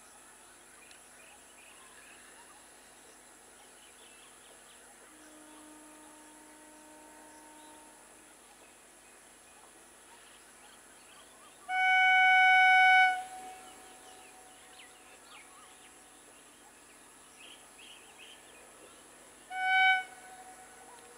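EMU train's horn sounding one loud single-note blast of about a second and a half, then a shorter blast about eight seconds later, over faint bird and insect chirps.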